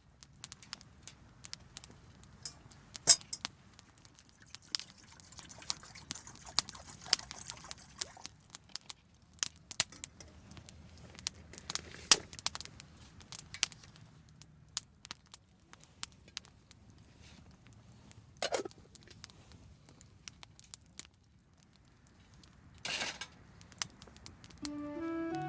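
Wood campfire crackling, with irregular sharp pops and snaps; the loudest pop comes about three seconds in.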